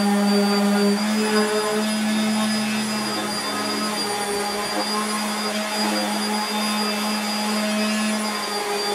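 Corded random orbital sander running steadily with a constant motor whine and pad hiss as it sands small wooden game boards.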